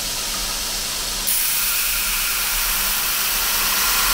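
Belt grinder with a 220-grit belt grinding the plunge line of a hardened steel knife blade held in a clamping jig: a steady hiss of abrasive on steel over the motor's hum. The hiss gets louder about a second in.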